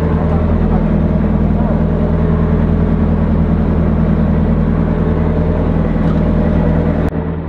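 Fishing boat's engine running steadily with a low, even drone. The sound drops abruptly near the end.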